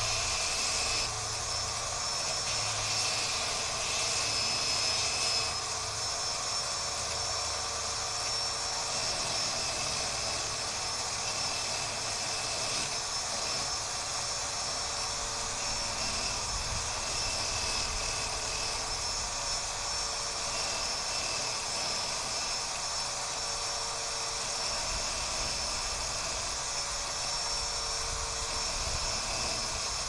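Corded electric drill running steadily with a high whine while the cut end of a garage door spring is held against the spinning bit to grind off its sharp edges.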